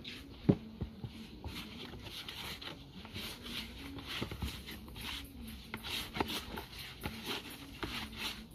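Hands kneading flour dumpling dough in a plastic bowl: soft squishing and pressing with irregular knocks against the bowl, the sharpest about half a second in.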